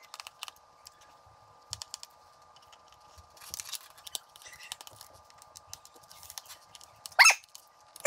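Small scattered clicks and handling noises of hands fitting an anti-static wrist strap and its plastic connector, over a faint steady hum. One short, louder squeak near the end.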